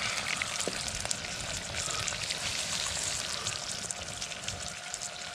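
Oil sizzling as chili, ginger, garlic and bay leaves fry in a pressure-cooker pot, a steady hiss with small scattered crackles.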